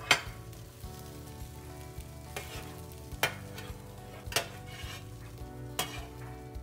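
Roasted broccoli florets scraped and slid off a metal baking sheet onto a plate with tongs and fingers. A sharp clack comes right at the start, then a continuous rustling scrape with four more knocks of the pan and tongs.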